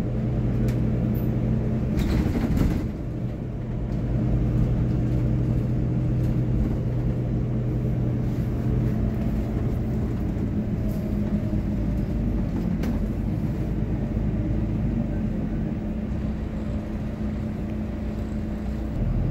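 Double-decker bus running along the road, heard from the upper deck: a steady low engine and drivetrain hum whose main tone fades about halfway through. A brief rattle comes about two seconds in.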